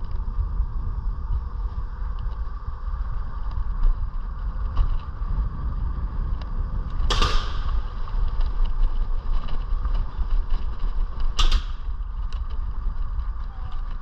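iScooter E9D electric scooter riding along: a steady low rumble with a steady hum running over it, broken twice by a short, sharp hiss-like noise, about seven seconds in and again about four seconds later.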